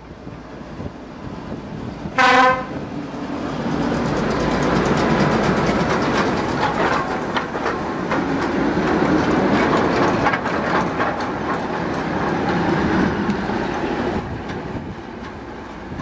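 A locomotive horn sounds one short, single-note blast about two seconds in. Then a diesel locomotive hauling the steam locomotive L-0693 passes close by: a loud rumble with the clickety-clack of wheels over rail joints, fading near the end as the train moves away.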